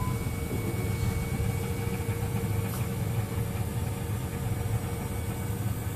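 A Pro Pump electric trunk-popping actuator runs with a thin, steady whine as it slowly swings a slab car's trunk lid open. The whine stops just before the end, over a continuous low rumble.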